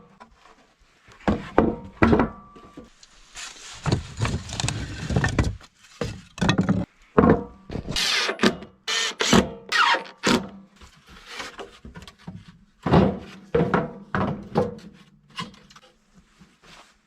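Irregular wooden thunks and knocks with short scraping sounds, the clatter of scrap boards being handled and set against each other.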